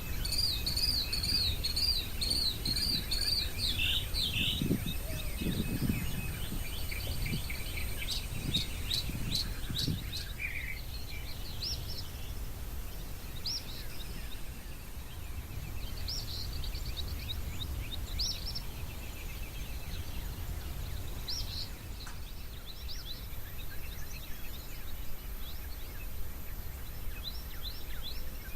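Wild birds singing and calling: a warbling, repeated song in the first few seconds, a quick run of sharp chip notes, then short high whistled notes every few seconds, over a steady low rumble.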